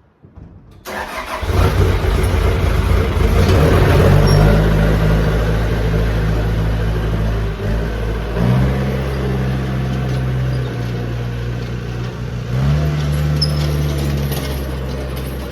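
Skid steer engine starting about a second in and running, its engine speed shifting up and down a few times.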